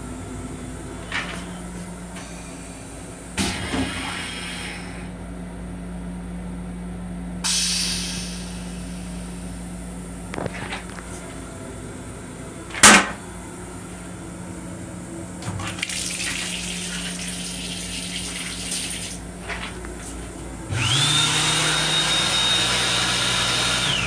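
Toilet on a Long Island Rail Road M7 railcar: the lid shuts with a sharp bang, then about 21 seconds in the toilet flushes, a rush of noise with a whine that rises and holds steady for about three seconds before cutting off.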